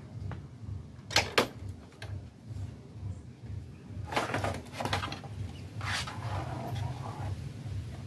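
A CRT television's main circuit board being handled and pulled out of its plastic chassis: two sharp clicks about a second in, then scraping and rattling around four and six seconds in, over a low hum.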